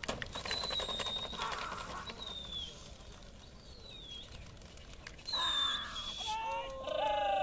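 Outdoor animal sounds: several short, high, downward-sliding bird calls, then a wavering goat bleat near the end.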